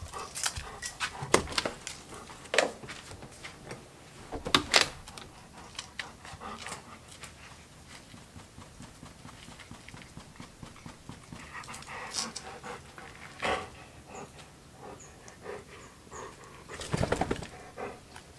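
Old English sheepdog scratching itself, a quick run of scraping strokes. Near the end it lets out one loud sigh.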